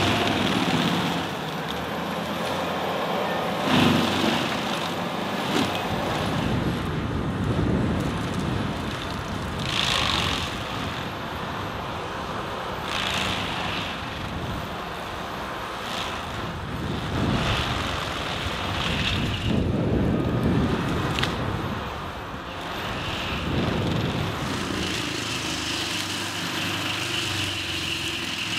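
Vermeer FT300 forestry tractor running under load, its drum mulcher head grinding through trees and brush. The shredding swells loudly several times as the head bites into wood.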